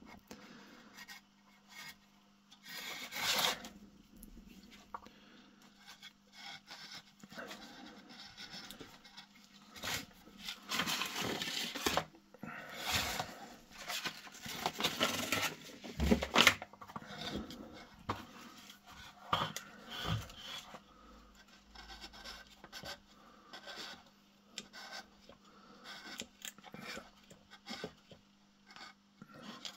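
Handling noises as braided fabric-covered lamp cable is pulled through a wooden lamp base: irregular rubbing and scraping, busiest in the middle.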